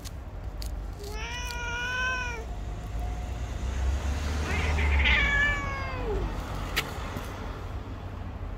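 White cat meowing twice: a long, level meow about a second in, then a rougher meow about five seconds in that drops in pitch at the end.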